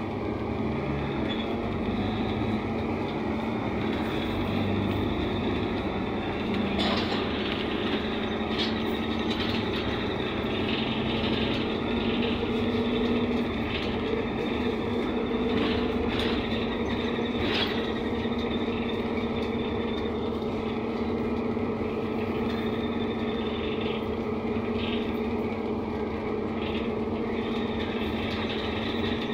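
Interior of a NefAZ 5299 city bus under way: the engine and drivetrain hum steadily over road noise, at an even cruising speed. A few short knocks and rattles from the bus body come through, the clearest about seven seconds in and again around sixteen to eighteen seconds.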